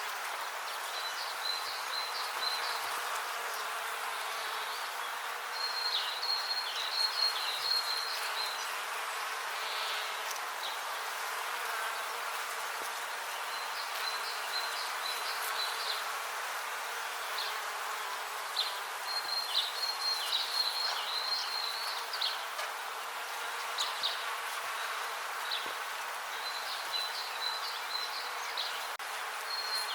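Bees buzzing in a steady, continuous drone, with short clusters of high-pitched chirping that come and go several times.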